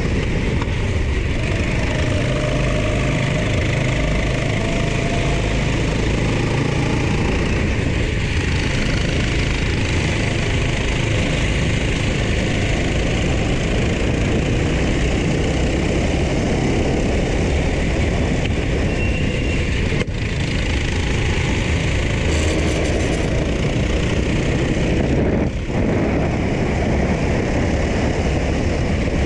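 Racing go-kart engine running hard at speed, its pitch rising and falling with the throttle, mixed with loud wind rush on the onboard camera microphone; another kart runs close ahead.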